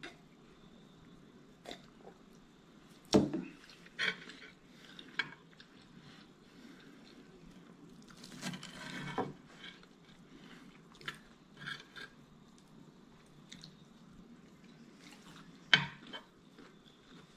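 Metal cutlery clinking and scraping on a ceramic plate, with a few sharp knocks, the loudest about three seconds in and another near the end, and soft chewing in between.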